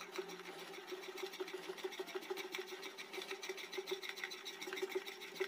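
Wire whisk beating malpua batter in a ceramic plate: a quiet, rapid, steady scraping and ticking of the wires against the plate.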